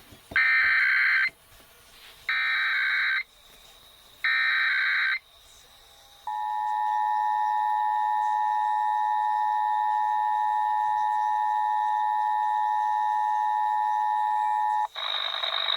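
Emergency Alert System test tones over radio: three one-second screeching bursts of SAME digital header data about two seconds apart, then after a short pause the steady two-tone attention signal (853 and 960 Hz), held for about eight and a half seconds and cut off sharply. A man's voice announcement begins right after.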